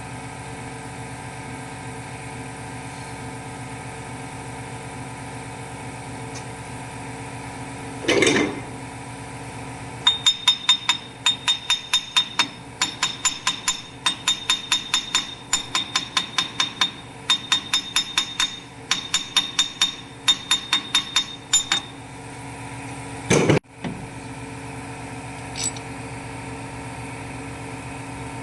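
Sharp metal-on-metal hammer blows, about three or four a second in runs lasting some twelve seconds, each with a brief high ring. A single heavier knock comes before and after the runs, over a steady low hum.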